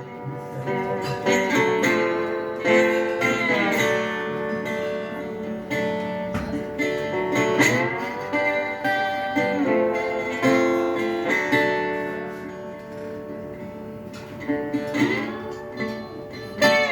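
Dobro resonator guitar played with a slide: sustained plucked notes, with slides up into the note about eight seconds in and again near the end.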